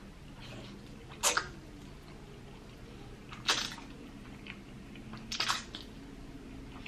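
A person slurping jjajangmyeon (black bean sauce noodles) off chopsticks: three short, loud slurps about two seconds apart.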